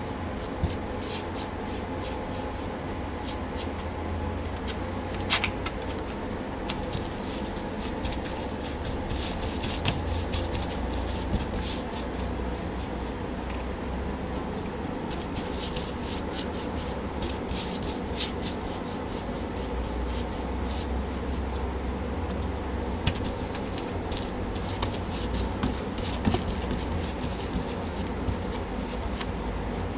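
Paintbrush bristles swishing and dabbing against a panelled door as wet paint is brushed out, in irregular runs of short strokes, over a steady low background hum.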